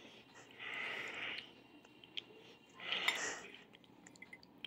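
A person breathing close to the microphone: two soft breaths about two seconds apart, with a few faint clicks between them.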